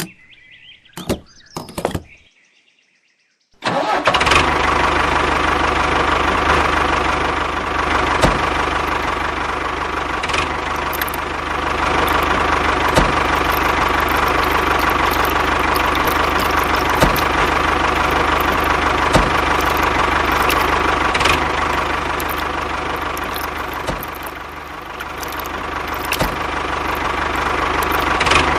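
A few short knocks, then a few seconds of silence, after which a small engine suddenly cuts in and runs steadily. Its level sags for a moment near the end and then picks up again.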